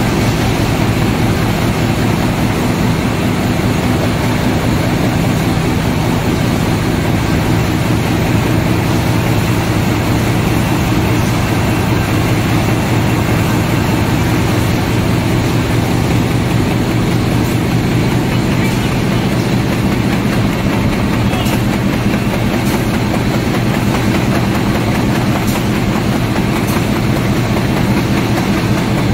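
A flexo folder gluer casemaker for corrugated boxes running: a loud, steady machine drone with a low hum. A few faint ticks come through in the last several seconds.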